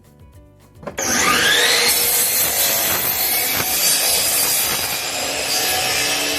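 Electric power saw starting up about a second in, its motor whine rising as it spins up, then cutting through a wooden board with a loud steady noise.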